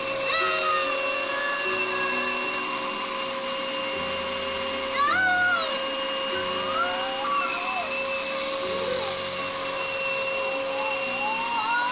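Vacuum cleaner running steadily with a high whine and hiss, while a cat meows several times over it.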